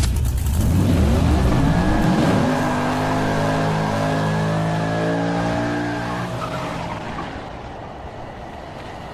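Car engine accelerating hard, its pitch climbing over the first couple of seconds, then holding steady and fading away.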